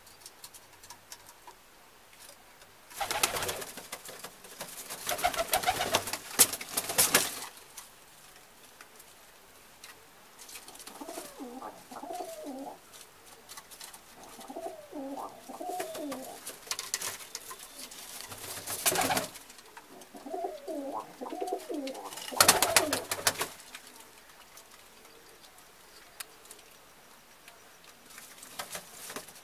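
Domestic pigeons cooing in several wavering bouts, with three loud rustling bursts: a long one in the first few seconds and shorter ones about two-thirds of the way in.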